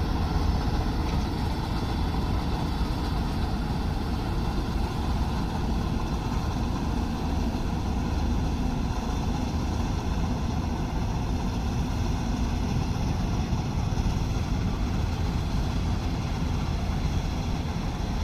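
Combine harvester running with a steady, unchanging engine drone.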